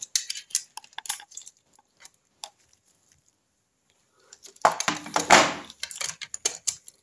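Light metallic clicks and clinks of a magnet tool against the gears and selector fork inside an open Triumph Trident T160 five-speed gearbox, as it is used to lift a dropped selector fork. A louder spell of clattering and handling noise comes about four and a half seconds in.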